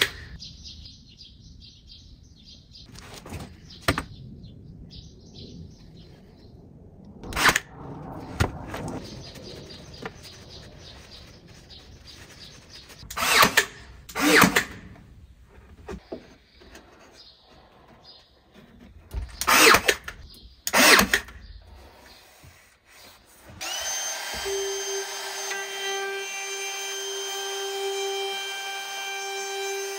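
A cordless drill driving screws into plywood racking in short bursts of about half a second to a second each. Near the end a DeWalt compact router starts with a quick rising whine and then runs steadily at a high pitch.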